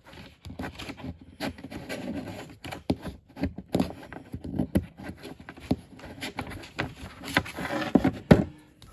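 A paper DVD pamphlet being handled and leafed through: paper rustling with many sharp clicks and taps, some from the plastic DVD case.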